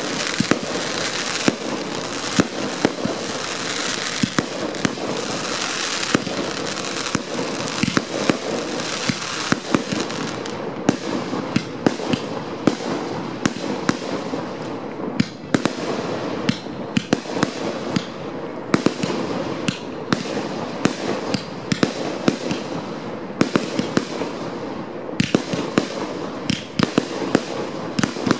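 Fireworks display: aerial shells and rising fountains going off without pause, with many sharp bangs every second over continuous crackling.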